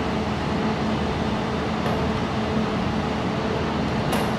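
Steady fan-like whirring hum of a running laser welding machine, with a single short click near the end.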